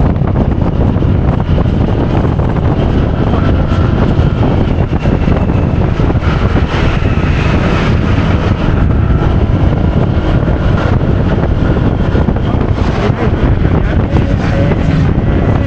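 Wind buffeting a helmet-mounted microphone while riding a Honda PCX scooter, with a faint engine and drive whine that drifts slowly in pitch underneath.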